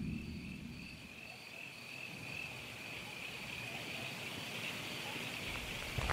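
Crickets chirring steadily in a high, slightly pulsing trill, as a low rumble fades out in the first second. A short click comes right at the end.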